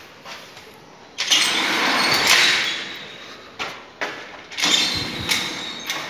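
Collapsible metal scissor gate being slid along its track: metal rattling and scraping in two long pushes, with sharp clanks in between.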